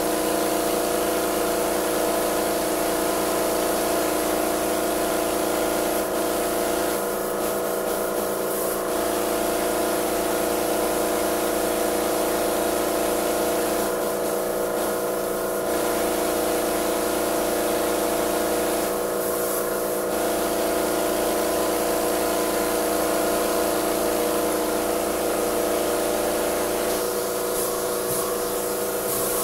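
Titan AirCoat air-assisted airless paint sprayer running: a steady mechanical hum with the hiss of the spray gun over it. The hiss drops away briefly four times.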